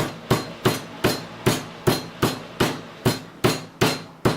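Meat tenderizer mallet pounding a chicken breast through plastic wrap, about three sharp thuds a second in a steady rhythm, flattening the cutlet so it fries evenly.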